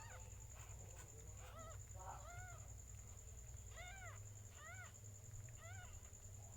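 Newborn kittens mewing: a series of short, high, rising-and-falling mews, about one a second.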